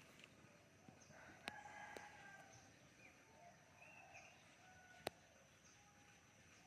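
Faint bird calls over a steady high-pitched whine, with two sharp clicks, about a second and a half in and about five seconds in.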